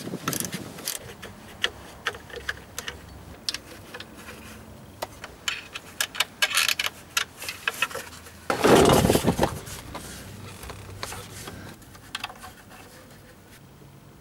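Hand work on the engine's plastic lower timing cover: scattered clicks, taps and light clinks as it is handled and worked loose. About nine seconds in there is a louder scraping rustle lasting about a second.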